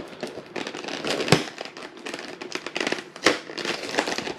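Clear plastic blister tray of toy-figure packaging crackling and crinkling as it is handled, with sharper pops about a second in and again after three seconds.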